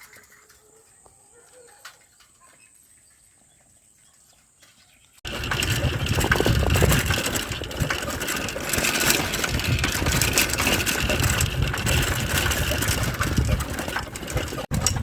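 Faint background at first. About five seconds in, it cuts sharply to loud, rumbling wind buffeting the microphone, as from riding along on a bicycle.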